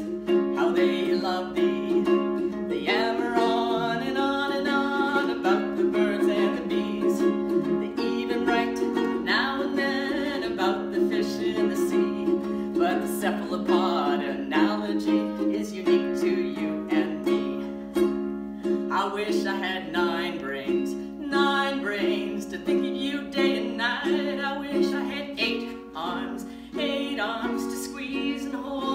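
A small group of ukuleles strumming chords in a steady rhythm, with a woman's voice singing over them at intervals.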